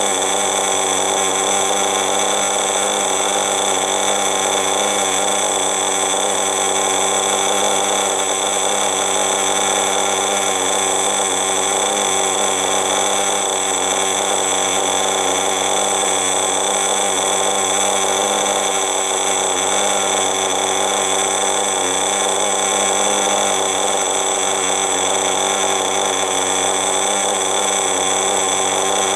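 Veco .21 two-stroke nitro engine of a Kyosho Baja Body RC buggy running at a steady speed with the car up on a stand and its wheels spinning free. A steady, high-pitched buzz with no revving.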